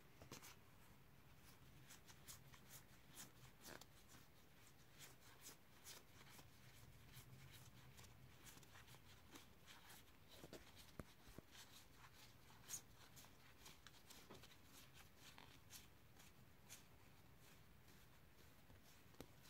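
Faint, quick clicks of stiff Dinosaur King trading cards being flicked through one at a time in the hand.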